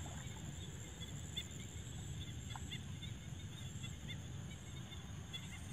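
Marsh at dusk: a steady high insect drone with short chirping animal calls every second or so, over a steady low rumble.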